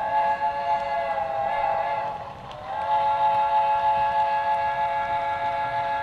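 Multi-chime steam locomotive whistle sounding a long blast, breaking off briefly about two seconds in, then sounding again and holding steady.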